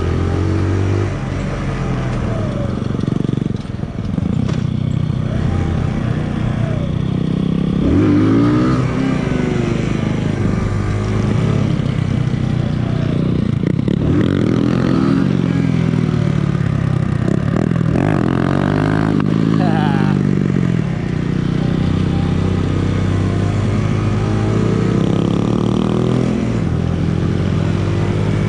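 Small 125 cc single-cylinder four-stroke motorcycle engine being ridden off-road, its revs rising and falling repeatedly every few seconds through gear changes and throttle.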